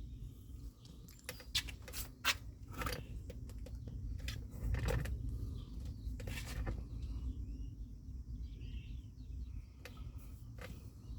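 A low, steady rumble, with several sharp clicks in the first seven seconds and faint bird chirps later on.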